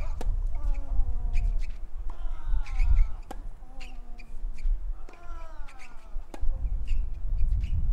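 Tennis rally on a clay court: sharp racket-on-ball strikes at irregular intervals, three of them followed by a player's long vocal grunt that falls in pitch, over low wind rumble.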